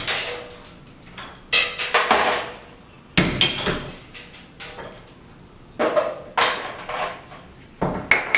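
Ball peen hammer tapping on a cracked glass block set in mortar to break it up. There are about six separate, irregularly spaced blows, each followed by a short rattling tail.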